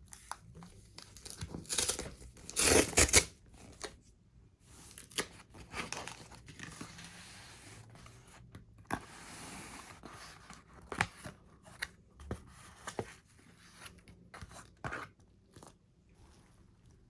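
Packaging being torn open by hand: a loud tear about two to three seconds in, followed by scattered clicks, crinkles and short rustles as the package is handled.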